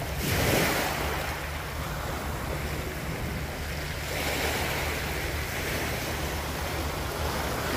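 Sea waves washing in against the pebble shore, swelling three times, with wind rumbling on the microphone.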